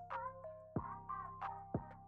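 Background music: an instrumental tune of short, ringing notes.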